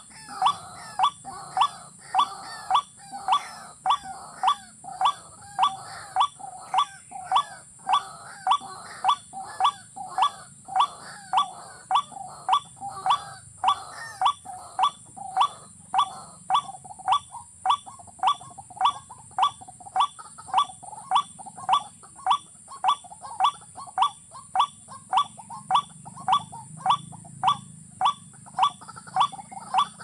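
A rail calling one short, clipped note over and over, evenly spaced at a little under two a second without a break.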